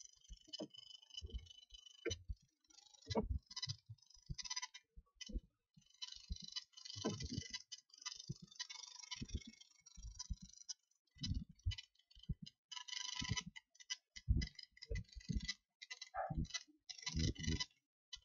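Irregular clicks and taps of computer keyboard typing, in short uneven runs.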